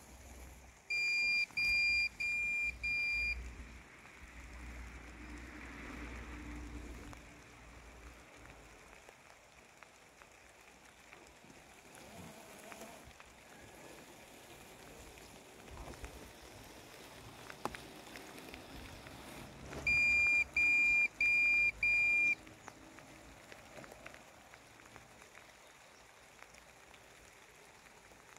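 Landxcape LX790 robotic lawn mower beeping in sets of four short, even, high beeps, about half a second each, once about a second in and again about twenty seconds in. Between the sets, a faint steady hiss of rain on wet grass.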